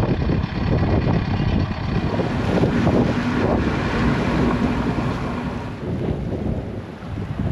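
Strong gusty wind buffeting the microphone aboard a sailboat, the noise surging and easing.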